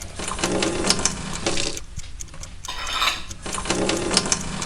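Dishes and cutlery clattering: many small clinks and knocks of crockery and metal being handled, in two or three busy bursts.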